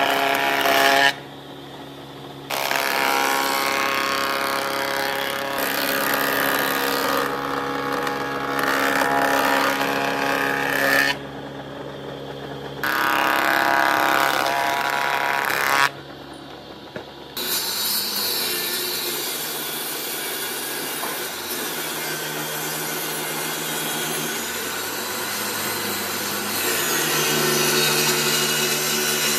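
Thickness planer running, its cutterhead planing a pine board with a steady machine whine, interrupted by a few short cuts. About 17 s in the sound changes to a steadier, lower machine hum from a table saw's motor.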